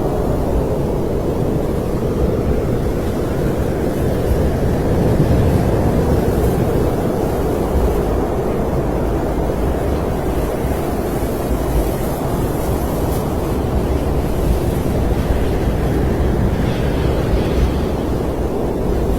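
Snowstorm wind blowing steadily: a dense, low rushing noise that swells slightly now and then.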